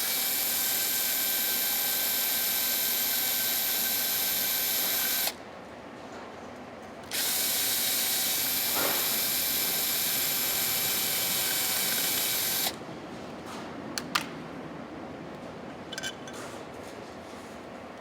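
Cordless drill/driver running twice, about five seconds each with a short pause between, backing out the screws of the box's gasketed cover; a few light clicks and knocks follow near the end.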